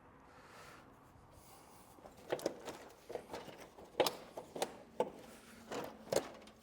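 Irregular sharp clicks and knocks of plastic bumper pieces and brackets being handled and pulled loose, about eight in four seconds, starting about two seconds in.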